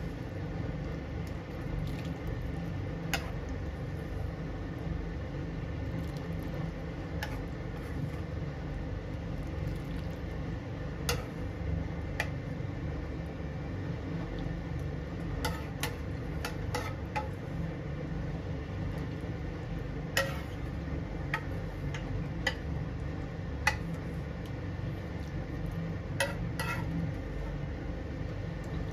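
Steady low hum with a few faint steady tones, broken by scattered light clicks and clinks, about a dozen in all.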